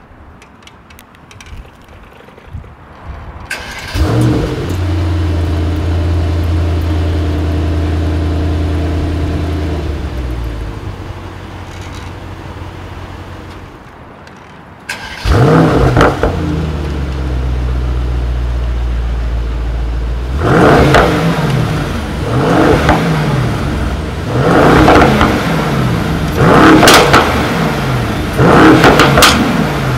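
Mercedes-AMG GT 63 S 4-Door's twin-turbo V8 starting with a loud flare and settling into a steady fast idle before shutting off. It is started again a few seconds later, idles, and is then revved in about five sharp throttle blips roughly two seconds apart.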